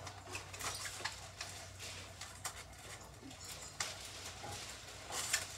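Clear sticky tape pulled from a roll and paper handled: scattered small clicks and crinkles, the loudest just before the end, over a low steady hum.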